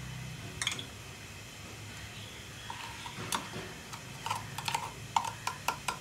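Cumin seeds spluttering in hot oil in an aluminium pot: scattered sharp pops and crackles, coming thicker in the last two seconds. They are the sign that the oil is hot enough for the tempering.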